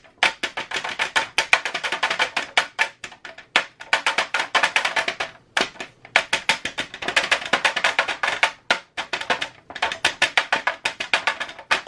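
Chocolate mould on a metal sheet pan being rapped repeatedly against a countertop to settle the freshly poured capping chocolate. Rapid taps, several a second, come in runs broken by a few short pauses.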